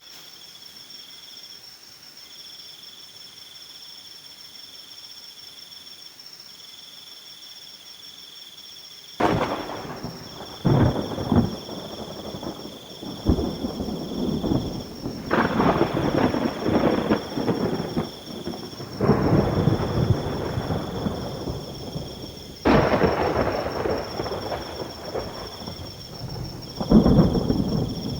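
Crickets chirping in steady pulsing trains over light rain. From about nine seconds in, thunder breaks in, with a string of sudden claps and rumbles, the last one near the end the loudest.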